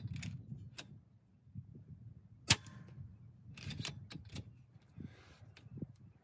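A single moderated shot from a .22 PCP air rifle, the RTI Prophet, about two and a half seconds in: one short sharp report. Lighter clicks and handling sounds come before and after it.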